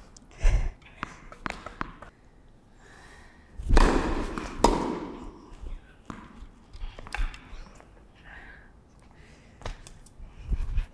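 Tennis ball strikes and bounces on an indoor hard court, sharp knocks echoing in a large hall. A louder rush of noise comes about four seconds in.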